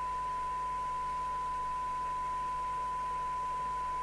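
Steady, unbroken 1 kHz test tone from a Thunderpole T2000 CB radio's receiver, demodulating the tone-modulated test signal from a signal generator during a receiver sensitivity (SINAD) check.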